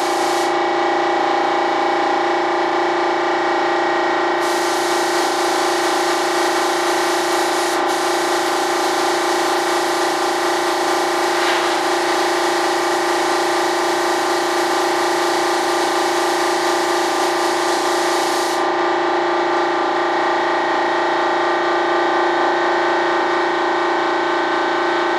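Air compressor running with a steady hum while a paint spray gun hisses, the hiss strongest from about four seconds in until near eighteen seconds.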